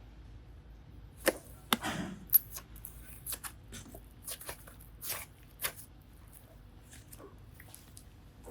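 Hands handling clay, slime and small plastic toys: scattered sharp clicks and taps with a few soft squishy swishes. The loudest clicks come between one and two and a half seconds in.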